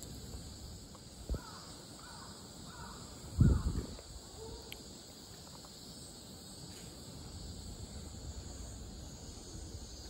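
A bird calling four times in quick succession, starting about a second in, over a steady background hiss. A loud low thump on the microphone comes about three and a half seconds in, with a smaller one just before the calls.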